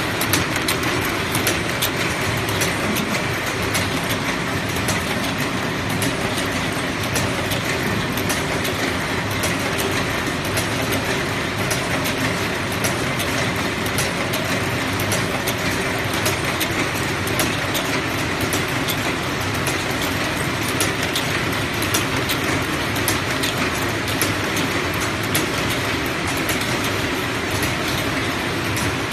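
Automatic hinge-spring forming machines running: a steady, dense mechanical clatter of rapid clicks that does not let up.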